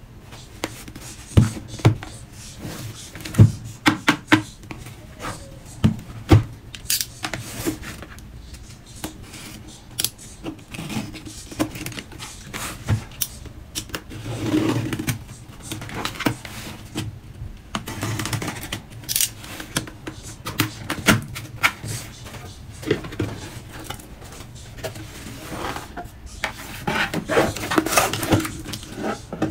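A cardboard shipping box being handled and opened: irregular taps, clicks and knocks on the cardboard, a utility knife scraping through the packing tape about halfway through, and the cardboard flaps being pulled open.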